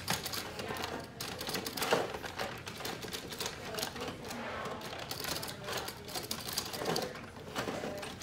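Rock 'Em Sock 'Em Robots plastic boxing toy being played: rapid, irregular plastic clacking from its thumb-button controls and the robots' punching arms, with a sharper knock about two seconds in.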